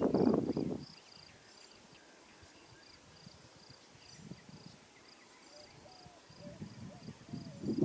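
A steady run of high insect chirps, two or three a second, with low rumbles during the first second and again near the end.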